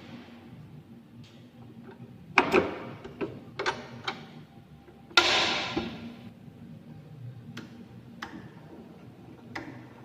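Scattered light clicks and knocks of kitchen utensils and containers being handled, with a louder rustling rush lasting about a second near the middle.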